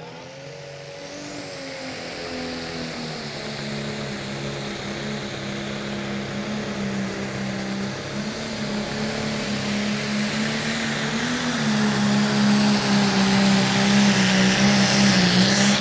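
International Harvester Pro Stock pulling tractor's turbo-diesel engine held at full throttle as it drags the weight-transfer sledge down the track, working hard under heavy load. Its steady note grows louder as the tractor comes closer.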